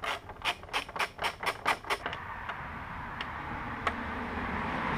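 Ratchet wrench clicking about four times a second for two seconds as it turns a windscreen bolt on the motorcycle's fairing. A steady garden-machinery motor then rises in the background.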